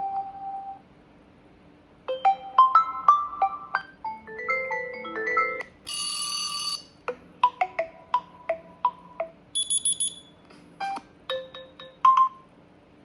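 OnePlus 10 Pro incoming-call ringtones, several different ones in turn: short melodies of quick plucked and mallet-like notes, split by brief pauses. A bright ringing chime sounds about six seconds in and another about ten seconds in.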